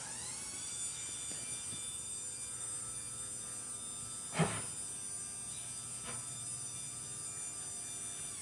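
LiftMaster 87504 belt-drive garage door opener running as it raises the door: a motor whine that rises in pitch as it ramps up, then holds steady. A knock about four and a half seconds in and a fainter one about a second and a half later.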